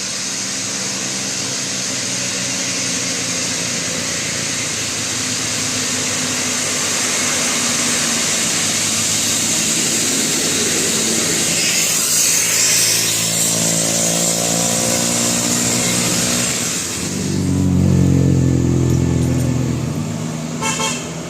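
Road traffic: motor vehicle engines running and passing over a steady hiss of road noise. A heavy engine is loudest about three-quarters of the way through, then fades.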